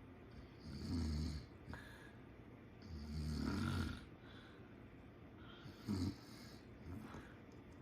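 A person snoring in irregular breaths: a loud snore about a second in, a longer, louder one around three seconds in, then a short sharp one near six seconds and a faint one soon after.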